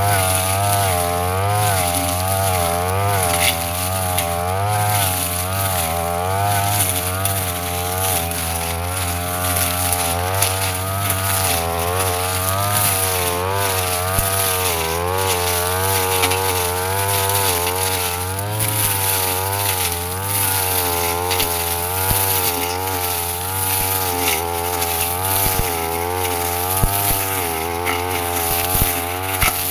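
Petrol brush cutter engine running at high revs, its pitch wavering up and down continuously as the blade works through grass and undergrowth. There are a few sharp knocks near the end.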